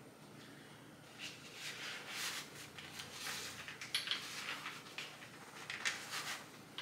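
Irregular rubbing and scraping as a gel underarm pad is worked off the top of a crutch, with a couple of small clicks.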